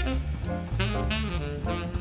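Background instrumental music with a bass line and a steady beat.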